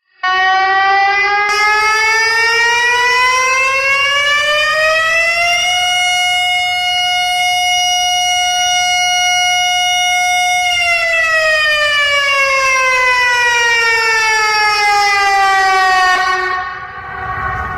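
Civil-defense warning siren wailing: one tone rises slowly for about five seconds, holds steady for about five seconds, then slowly falls. Near the end, low background rumble comes in under the falling tone.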